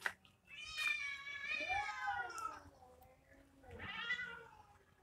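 Tomcats squaring off and yowling in a territorial standoff: one long wavering yowl for about two seconds, then a shorter one near the end.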